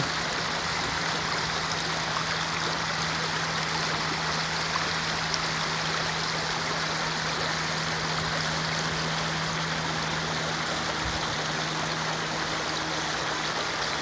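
Shallow mountain river rushing over a stony riffle: a steady, even wash of water, with a steady low hum underneath.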